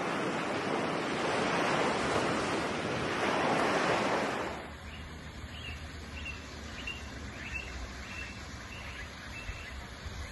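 Ocean surf washing in, swelling twice and then cut off abruptly. After that comes a quieter low rumble with faint high chirps repeating about twice a second.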